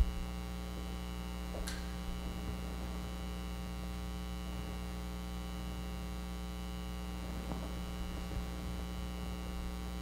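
Steady electrical mains hum on the audio feed, a low drone with many even overtones, broken only by a short low thump at the very start and a faint click about two seconds in.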